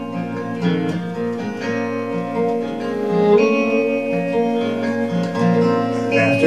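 Instrumental break of a live folk-rock song: strummed acoustic guitar with a band behind it and a violin playing sustained melody lines, with no singing.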